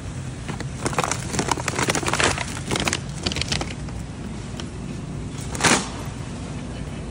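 Steady hum of supermarket refrigerated display cases, with a shopping cart rattling for a few seconds as it is pushed along, then one short, louder noise near the end.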